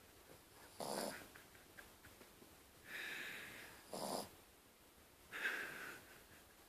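Sleeping dog snoring: two breaths about three seconds apart, each a short, rough snore followed by a longer, airier breath.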